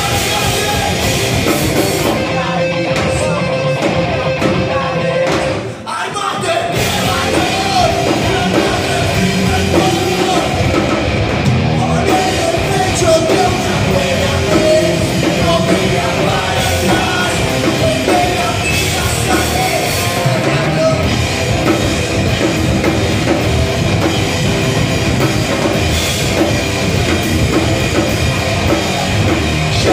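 Live rock band playing loud: electric guitars, bass guitar and drum kit, with a singer. The band briefly drops out about six seconds in, then comes back in.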